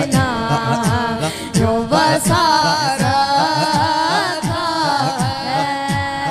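A boy singing an Urdu naat into a microphone in long, ornamented phrases, over a repeating low beat of falling-pitch strokes about twice a second.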